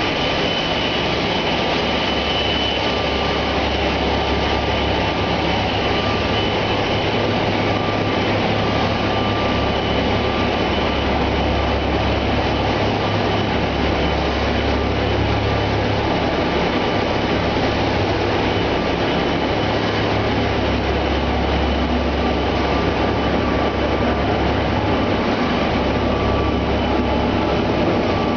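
Egg tray production line machinery running: a steady mechanical noise with a low hum and a faint high-pitched whine.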